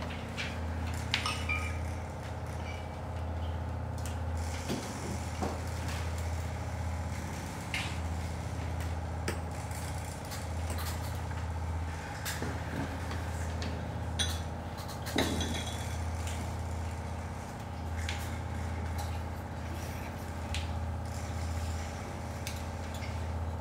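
Low, steady electronic drone from loudspeakers with a few fainter held tones above it, dotted with scattered clicks and a couple of soft knocks.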